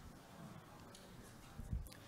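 Quiet hall room tone with faint low rustling, and a brief soft knock near the end.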